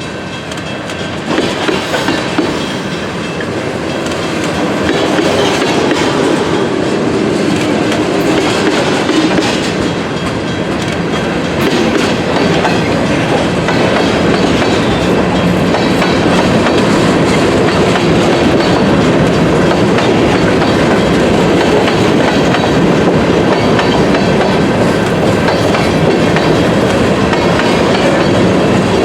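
CSX freight train rolling past at close range, its wheels clicking over the rail joints under a steady rumble that builds over the first few seconds and then holds.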